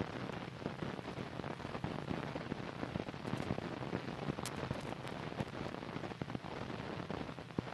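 Steady hiss of an old film soundtrack, dotted with many small clicks and pops of crackle.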